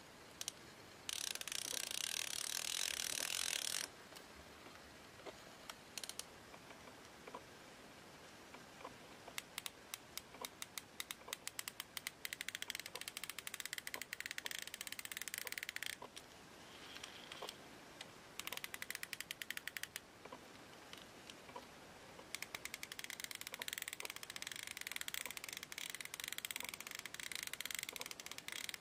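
Aftermarket drag clicker on an ABU Ambassadeur 4500C baitcasting reel clicking in several runs of rapid clicks, with short pauses between them.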